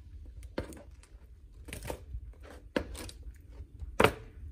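Beef flanken ribs being turned over on a parchment-lined sheet pan: about five separate clicks and paper crinkles from the utensil and parchment, the loudest near the end.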